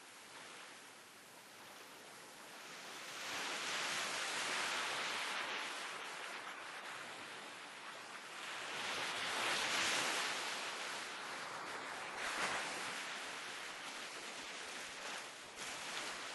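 Ocean surf: a steady hiss of waves washing in, swelling and easing several times, loudest about four and ten seconds in.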